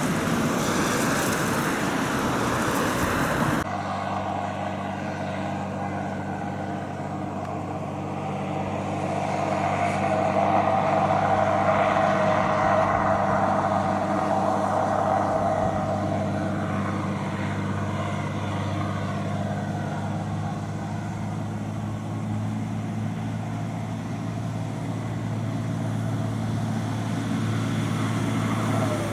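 Tyre hiss from traffic on a wet road for the first few seconds. Then an Isuzu heavy truck's diesel engine runs with a steady drone as the truck approaches; it swells about ten seconds in, eases, and grows louder again as the truck nears, near the end.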